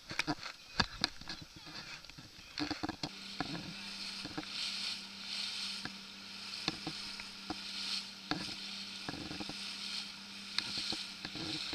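Small waves slapping and lapping against the hull of an inflatable boat, a run of short irregular splashes over a soft hiss of water. About three seconds in a steady low hum sets in and holds.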